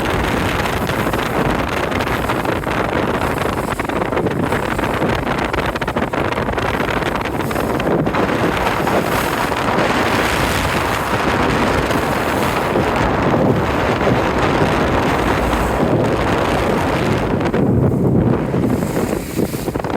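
Wind buffeting the microphone aboard a dhow under way, over a steady rush of sea.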